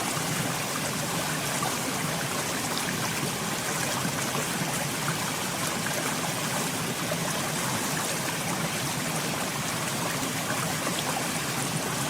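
Steady stream of running water, trickling and babbling without a break.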